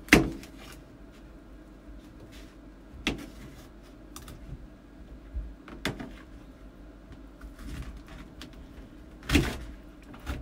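Kitchen knife cutting through a peeled pineapple on a plastic plate: a few sharp knocks several seconds apart, the loudest right at the start and another strong one about nine seconds in, with quiet slicing between.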